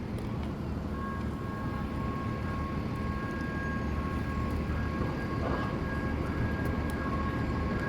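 Steady low rumbling background noise, with two faint steady high tones coming in about a second in and holding.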